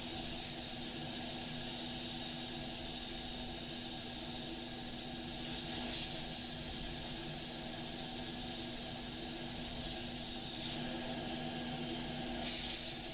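Air blower running steadily, a continuous airy hiss over a low motor hum, blowing dust and alcohol residue out of a laptop's RAM slot.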